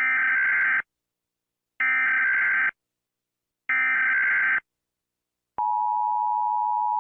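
Emergency Alert System data header: three identical bursts of warbling digital data tones, each just under a second long with a second of silence between them. About five and a half seconds in, a steady, unbroken alert tone begins.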